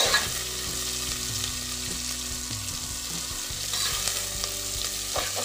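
Sliced onions, garlic and curry leaves sizzling steadily in hot oil in a pressure cooker pot, with a metal ladle scraping and stirring them against the pot just after the start and again around four seconds in.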